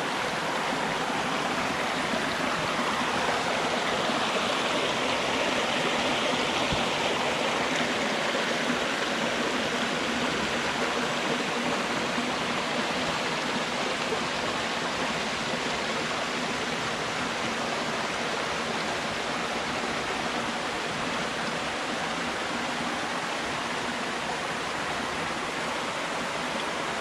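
Creek water rushing over rocks and small cascades, a steady even rush.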